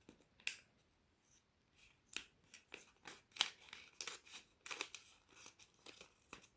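Scissors snipping open a plastic packet of snow powder: a series of short crisp cuts, sparse at first and coming quickly from about two seconds in.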